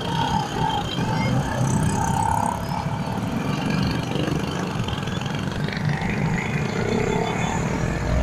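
Small vehicle engine running while moving along a road, its carburettor fed with hydrogen gas from a homemade HHO kit, under steady wind and road noise.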